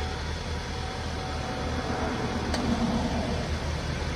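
Ford Focus engine idling steadily, with one short, sharp click about two and a half seconds in.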